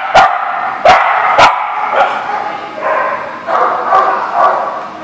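Small dogs barking: three sharp barks in the first second and a half, then a run of longer, higher-pitched barks and yips.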